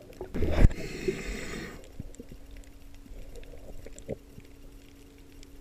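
Underwater: a scuba diver exhaling through a regulator, a loud burst of bubbling that lasts about a second and a half near the start. Underneath is a steady low hum with scattered faint clicks.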